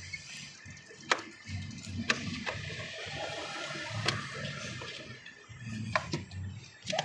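A long screwdriver working out the last screw on a car's air filter housing: a handful of sharp clicks and ticks at irregular intervals, over faint background music.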